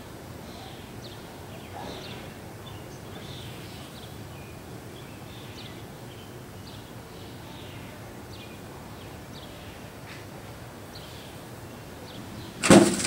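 Faint bird chirps repeat over a low steady background. Near the end comes a single sudden loud bang: a water balloon bursting inside a microwave oven and blowing its door open.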